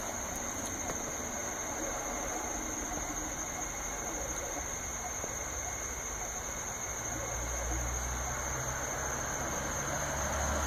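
Diode laser engraver running during a burn: the laser module's cooling fan gives a steady hiss with a high steady whine, and a low hum comes up about seven seconds in as the machine moves.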